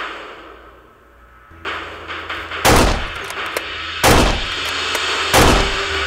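Three loud gunshot bangs, about a second and a half apart, laid over a Nerf Elite blaster being fired, with background music underneath.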